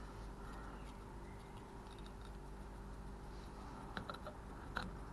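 Faint steady hum with a few small metallic clicks about four seconds in and again near the end, from a car door lock cylinder being handled.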